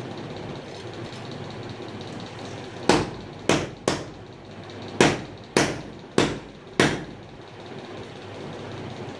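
Seven sharp slaps of bare palms on a large 800x800 mm floor tile, bedding it into place: three in quick succession about three seconds in, then four evenly spaced a little more than half a second apart. A steady low hum lies underneath.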